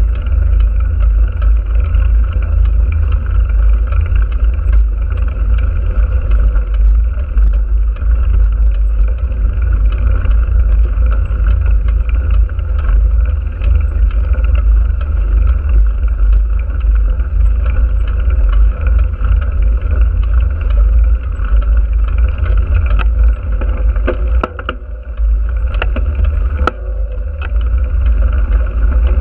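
Wind buffeting and rumble on the microphone of a camera riding on a moving vehicle, with a steady drone from the vehicle underneath. The rumble eases briefly about 25 seconds in, and a few light clicks come near the end.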